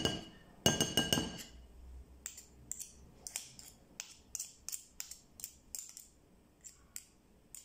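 Metal spoon clinking against a glass mixing bowl, with a short ring, in the first second or so. Then a run of lighter quick ticks and scrapes, about three a second, as the spoon works a lump of solid coconut oil off into dry flour.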